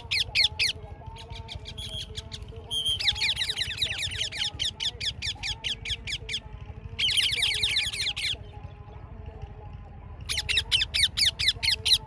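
Ringneck parakeets calling in bursts of rapid, high-pitched repeated screeches, several notes a second, with pauses between the bouts. The longest bout runs from about three to six and a half seconds in.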